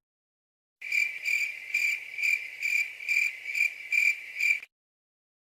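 Crickets sound effect: a cricket chirping in about nine short, even chirps, a bit over two a second, starting about a second in and stopping near the end.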